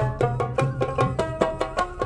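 Bengali folk instrumental: a painted two-headed barrel drum plays a quick, even beat with deep thumps, under a melody plucked on a long-necked lute.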